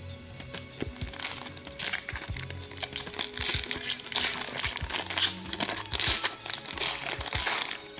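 A hockey card pack wrapper being torn open and crinkled by hand, a run of loud rustling and crackling that stops just before the end, with background music underneath.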